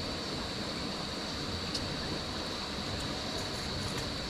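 Steady rushing of flowing water, with a constant thin high tone over it.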